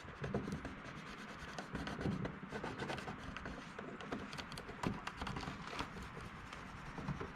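Fingers rubbing and pressing an adhesive-backed switch board down onto a plastic heater housing to smooth it out: faint, uneven scratchy rubbing with small ticks and clicks.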